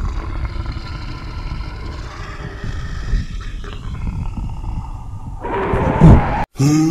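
Growling from an augmented-reality tyrannosaurus app's sound effects, low and rumbling, swelling into a loud crash about six seconds in.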